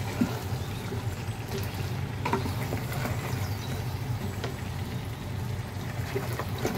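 A spatula stirring a thick beef and potato curry in a pot, making a few light scrapes and taps, over a steady low hum.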